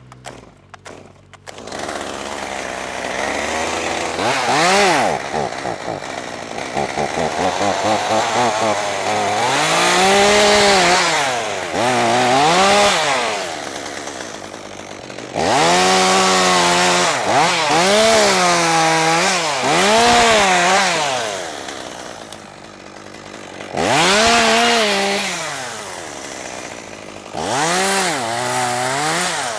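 Gasoline chainsaw running, revved up and dropping back again and again, its pitch rising and falling in repeated sweeps as it works.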